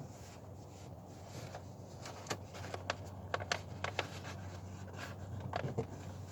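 A run of small sharp clicks and taps, bunched together a couple of seconds in, with two more near the end, over a low steady hum.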